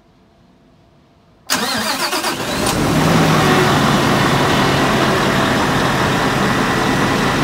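Scania R730's V8 diesel starting about one and a half seconds in: a sudden burst as it fires, running up to a fast idle that drops to a lower, steady idle a few seconds later.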